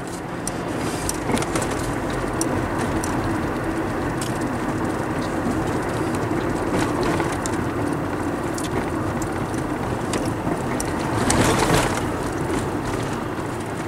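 Car driving along: steady engine and road noise, swelling briefly about eleven seconds in.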